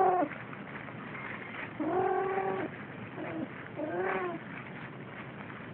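Siamese kittens meowing: a short meow at the start, a longer drawn-out one about two seconds in, and a shorter one about four seconds in.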